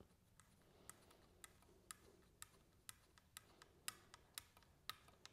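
Faint, regular ticking, about two clicks a second, from an M5 screw being turned by hand with a T-handle hex key into a hole that has never been threaded, so the screw is cutting its own thread as it goes.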